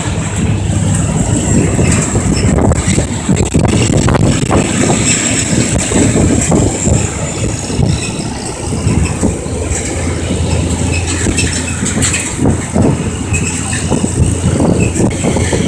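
Old farm tractor engine running steadily as the tractor drives along, a continuous low drone with a rough, uneven texture over it.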